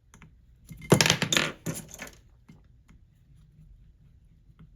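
Small metal tools clattering on a workbench: a jangle lasting about half a second, a shorter one just after, then a few faint ticks.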